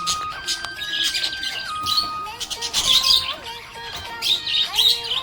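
Budgerigar chirping and warbling in short repeated bursts, over background music with a slow melody of held notes.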